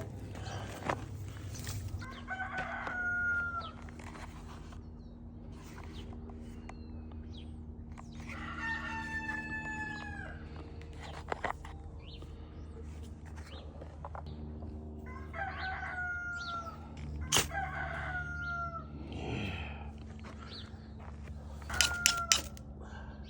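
A rooster crowing about five times, each crow about a second long and dropping slightly at the end, over faint steady held low tones, with a few sharp clicks in the second half.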